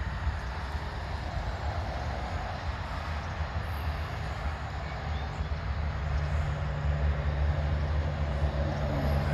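Jet noise from the F-35A's single Pratt & Whitney F135 afterburning turbofan: a steady, deep rumble that grows louder over the last few seconds as the jet approaches.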